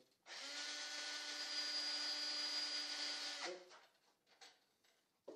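Power drill running in one steady burst of about three seconds, spinning a threaded rod down through the helix layers, then stopping about three and a half seconds in. A few faint clicks of handling follow.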